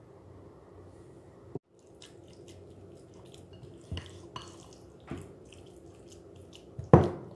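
Silicone spatula mixing wet raw beef mince and spices in a glass bowl: soft wet squishing and small clicks, with a few sharper knocks, the loudest near the end.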